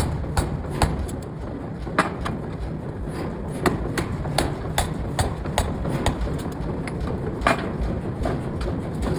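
Air hammer striking hot steel, sharp blows about two or three a second at first and then at irregular intervals, over a steady low rumble of machinery.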